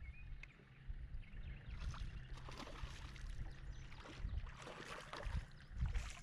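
Water lapping against a bass boat's hull under a low wind rumble. From about the middle on come irregular splashes as a hooked bass thrashes at the surface beside the boat.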